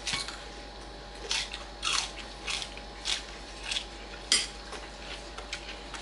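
Eating sounds at a meal: a series of short crisp crunches and clicks, about every half second, from bites and chewing of raw mini sweet pepper, mixed with spoon clinks on plates.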